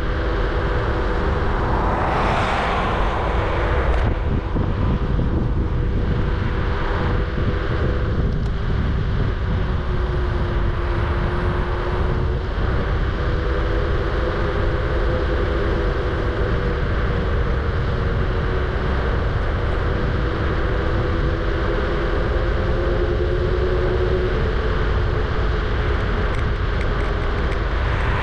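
Electric scooter in motion: a steady whine from its electric motor that drifts up and down in pitch with speed, over heavy wind rumble on the microphone. A brief louder rush comes about two seconds in.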